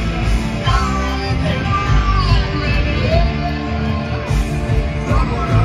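Live rock band playing electric guitars over sustained bass and drums, with a melody line sliding up and down in pitch, heard from the audience in a concert hall.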